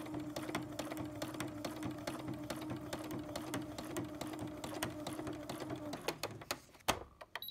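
Domestic sewing machine stitching free-motion embroidery at a steady speed, a hum with rapid needle clicks, stopping about six seconds in. A single sharp click follows about a second later.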